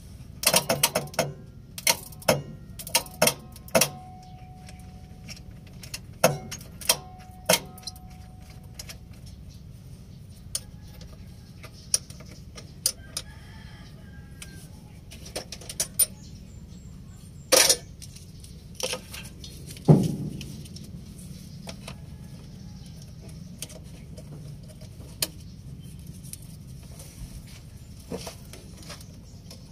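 Irregular sharp metallic clicks and knocks from hands and tools working on a truck's battery relay wiring, thickest in the first eight seconds, with one louder knock about twenty seconds in, over a steady low hum. A faint thin tone sounds for a couple of seconds about five seconds in.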